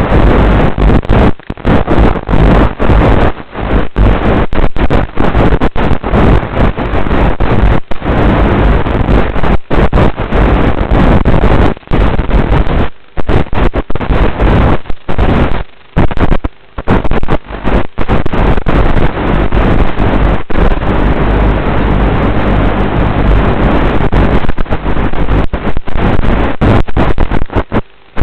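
Wind buffeting the microphone of an RC sailboat's onboard camera: a loud, distorted rumble that cuts out briefly again and again.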